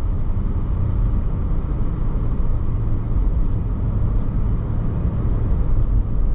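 Steady low road rumble inside a moving car's cabin: engine and tyre noise while driving.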